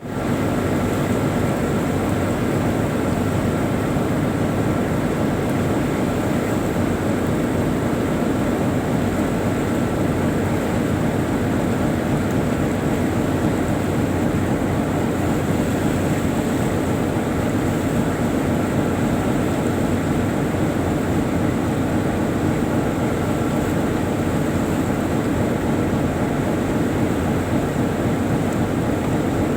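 A tugboat's diesel engines heard on board while it is underway: a loud, even drone that holds steady throughout.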